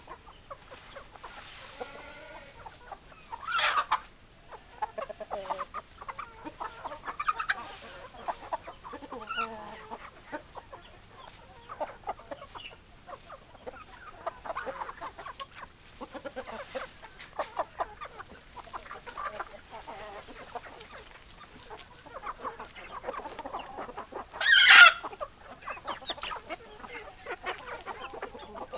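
Hens clucking continuously, with many short overlapping calls. There are louder calls about four seconds in and again near the end.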